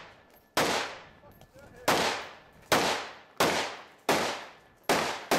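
Rifle fired in a rapid string, about seven shots, each a sharp report that dies away quickly. The shots come roughly 0.7 seconds apart, after a longer gap following the first, with the last one right at the end.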